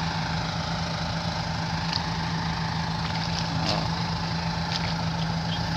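Tractor engine running steadily with an even low drone as the tractor works a rotary tiller through flooded paddy mud.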